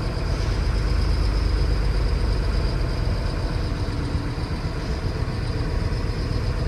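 Heavy goods truck's diesel engine running at low speed, heard from inside the cab as a steady low rumble, with a thin steady high whine over it.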